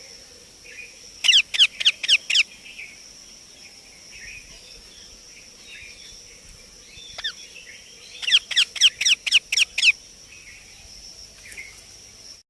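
Baby Indian ringneck parakeet calling in two rapid runs of loud, sharp, falling squawks: about five a little over a second in, and about eight more near the eight-second mark. A single call comes between the runs, with softer chirps and a steady high whine behind.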